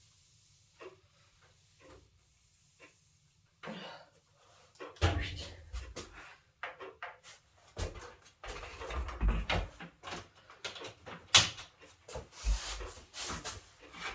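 Knocks, bumps and rubbing from an electric convector heater and its cord being handled, wiped and set in place. Only a few small clicks in the first seconds, then a busy run of knocks and thuds from about five seconds in.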